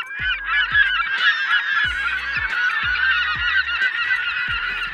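A large flock of birds calling together: many short, overlapping calls at once, loud and continuous. Beneath them a low thud repeats roughly once a second.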